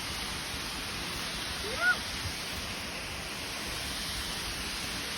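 Steady rushing of a waterfall, with one short high call about two seconds in.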